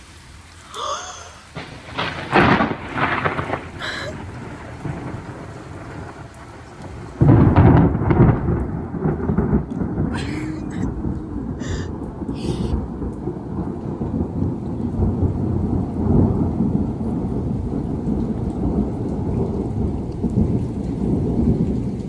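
Thunder in a storm overhead: a few sharp cracks about two to four seconds in, then a loud clap about seven seconds in that rolls on as a long, heavy rumble. Rain falls throughout.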